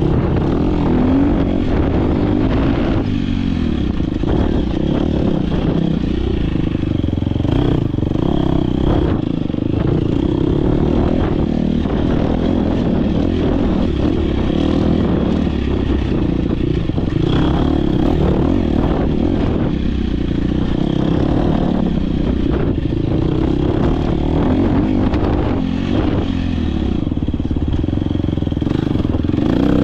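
Dirt bike engine running under hard load during a race run, its revs rising and falling as the rider works the throttle, with the clatter and knocks of the bike over rough ground.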